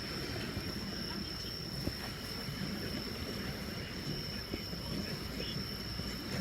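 Insects trilling steadily at one high pitch, over a constant low rumble.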